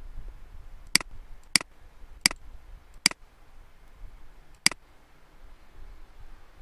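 Computer mouse button clicking five times at uneven intervals, sharp single clicks, as layers are selected in an editing program.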